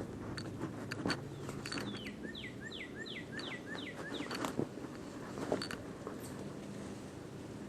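A songbird sings a quick run of about eight down-slurred whistled notes, starting about two seconds in and lasting a couple of seconds. Around it are scattered sharp clicks and crackles of people moving through overgrown ground cover, a few of them louder than the song.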